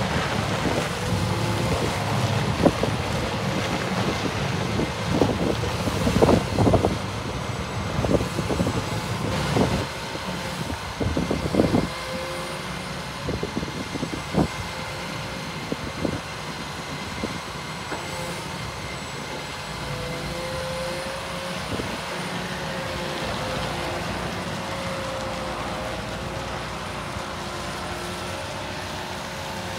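Volvo EW160E wheeled excavator running as its boom, tilting grading bucket and upper structure move, with a series of sharp knocks and clanks over the first half. In the second half the machine noise settles to a steady, slightly wavering tone.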